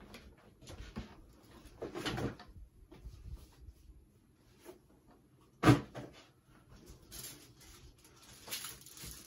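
Scattered light handling noises, soft rustles and clicks, with one sharp knock a little past halfway.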